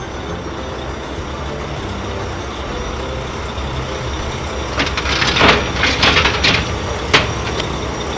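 Dump truck engine running steadily. About five seconds in comes a burst of crashing and clattering as pieces fall, ending with one sharp knock.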